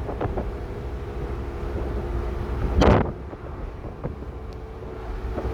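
Wind buffeting the microphone over a steady low engine hum, with one sudden loud burst about three seconds in.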